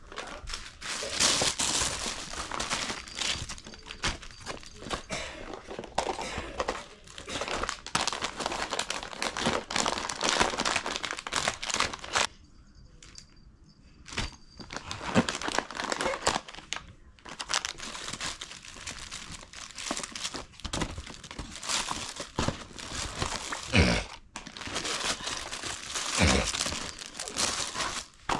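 Packaging crinkling and rustling as it is handled, in irregular bursts with a short pause about halfway through.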